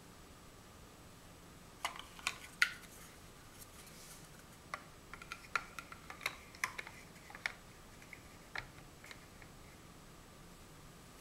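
Large plastic Mega Bloks First Builders blocks being handled and pressed onto a block-built model: a scatter of sharp plastic clicks and clacks, three close together about two seconds in, then a quick run of them in the middle and one more later.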